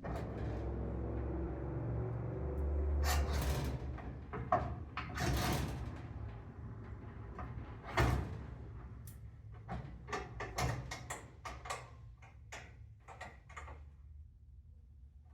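Parts of a table saw being fitted during assembly: a long scraping slide, then separate knocks, a sharp one about eight seconds in, and a run of quick clicks and taps.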